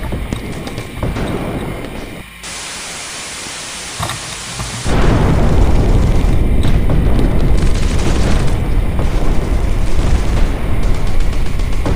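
Wind buffeting a helmet camera's microphone on a moving truck, with a heavy low rumble underneath. It jumps to full loudness about five seconds in, after a couple of seconds of steady hiss.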